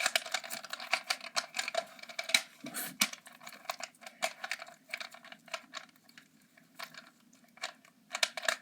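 Plastic Rubik's Cube being twisted fast, its layers clicking and clacking in quick turns. The turns come thickest in the first few seconds, then thin out.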